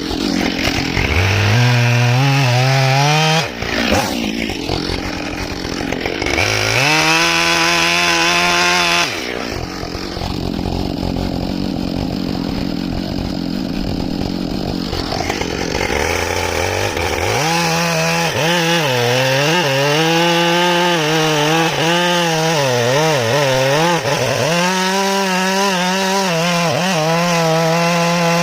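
Husqvarna 572 XP two-stroke chainsaw with a 28-inch bar, revved up twice in the first nine seconds, then run at full throttle while cutting through a large red oak log. Its engine pitch dips and recovers over and over as the chain bites into the wood.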